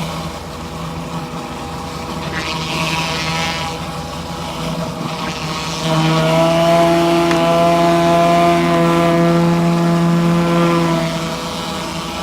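Pressure washer running steadily with a surface cleaner attachment. It gets louder for about five seconds from around halfway through, then settles back.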